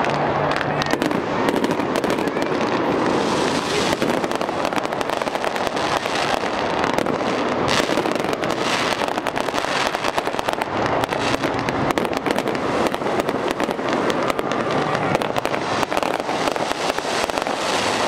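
Aerial fireworks going off in a dense, continuous barrage of rapid crackling pops.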